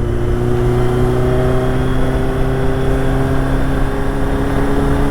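Motorcycle engine running at a steady pace while riding, its aftermarket exhaust muffled by a fitted dB killer, with the pitch sagging slightly. Wind and road noise lie underneath.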